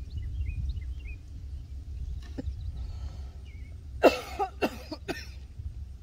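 A person coughs three times in quick succession, close to the microphone, about four seconds in, over a steady low rumble of wind on the microphone. Faint high bird chirps come in the first second.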